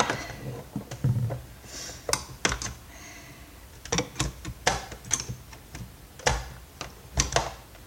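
Irregular sharp plastic clicks and knocks as the plastic housing of a vacuum cleaner is handled and pried apart.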